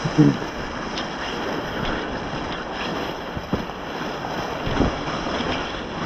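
Steady rushing noise of wind on the microphone, with a brief low vocal sound at the start and a few faint knocks.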